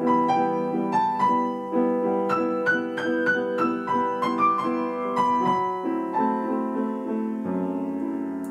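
Acoustic piano playing a slow phrase: a melody of single struck notes, about two a second, over held chords, the loudness swelling and easing from note to note. The line rises to a high point about three seconds in, falls away, and a new chord is struck near the end.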